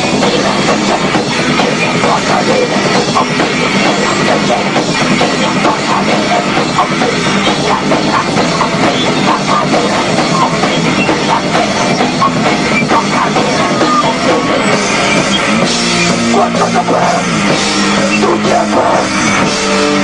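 A heavy metal band playing live and loud in a rehearsal room: drum kit and distorted electric guitar. Toward the end, held guitar notes ring out over the drums.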